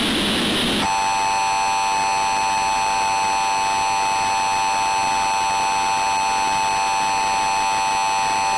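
A short burst of harsh noise, then the Emergency Alert System attention signal. It is a loud, steady two-tone beep near 850 and 950 Hz, held unbroken for about eight seconds to announce an emergency alert.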